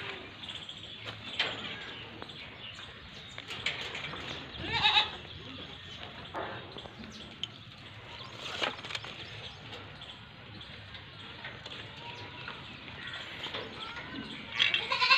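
A Pathira-breed goat bleating several times, each call wavering, the loudest about five seconds in and near the end.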